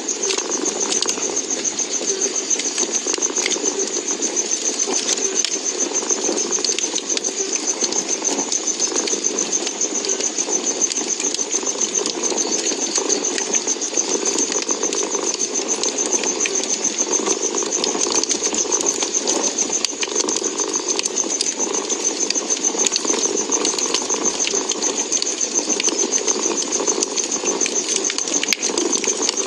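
A cat purring steadily and close, over a wood fire crackling with scattered small sharp pops.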